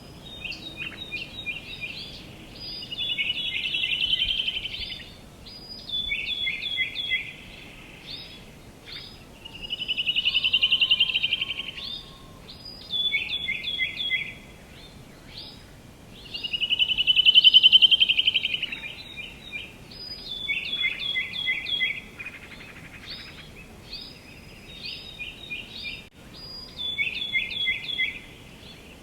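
Songbirds singing: quick runs of short high chirps, repeated again and again. About every seven seconds comes a louder, longer trill that swells and fades over a couple of seconds. A faint steady outdoor hiss lies beneath.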